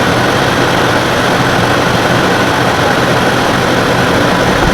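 Portable 12,000 BTU air conditioner just switched on for cooling, its fan and compressor running with a loud, steady rush of air and a low hum.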